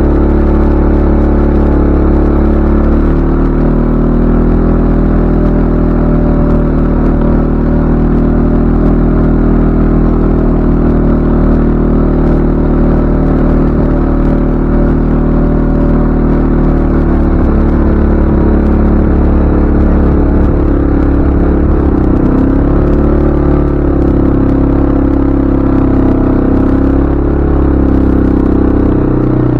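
CFMoto ATV engine running under way, a steady drone whose pitch starts rising and falling with the throttle about two-thirds of the way in.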